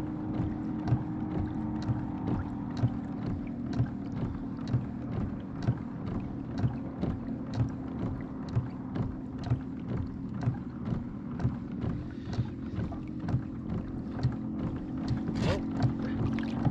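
Fishing boat moving slowly at trolling speed: a steady motor hum, with a short knock about once a second as the hull meets small waves.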